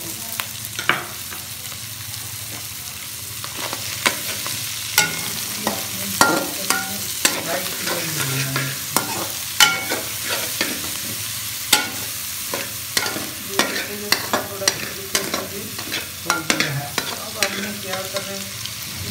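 Chicken, capsicum and onion sizzling in hot oil in a metal pot while a metal slotted spoon stirs them, scraping and clacking against the pan. The clacks come thick and fast from about four seconds in.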